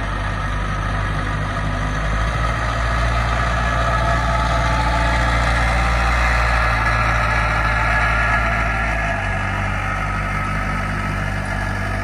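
Small aircraft tug's engine running steadily as it tows a Hawker Hurricane, a little louder around the middle as it draws near and easing slightly near the end.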